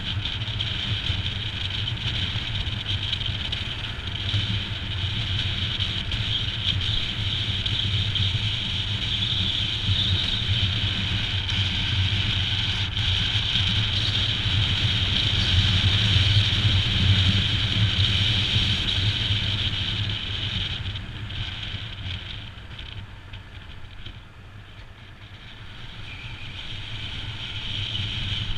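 Royal Enfield Himalayan's single-cylinder engine running steadily while riding, with wind noise. The sound quietens for a few seconds about three-quarters of the way through, then builds again near the end.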